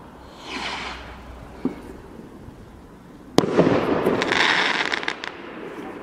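Air Raid firework rocket going up with a rising whoosh about half a second in. A little past halfway comes a sharp bang, followed by about two seconds of crackling burst.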